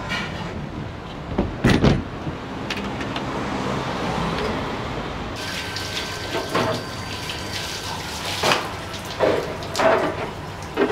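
Water running from a hose in a commercial kitchen while clear plastic containers are rinsed, with several sharp knocks and clatters of the containers being handled.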